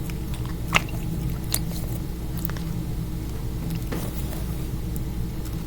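Orbeez-filled squishy toy being squeezed and handled, with soft squishing and a few sparse light clicks over a steady low hum.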